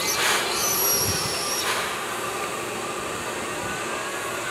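Steam locomotive on a hand-pushed turntable, hissing steam: a loud burst of hiss in the first half-second and another just before two seconds, with a thin high squeal between them, over a steady hiss.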